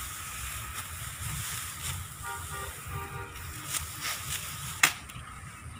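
Rice stalks being cut by hand with sickles: a crisp swish-crunch with each stroke, coming about once a second, with one sharp stroke loudest near the end. A short two-part horn-like tone sounds in the middle.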